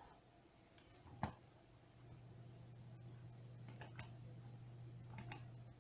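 Near silence with a few faint clicks, one sharper about a second in and a few softer ones later, over a low steady hum.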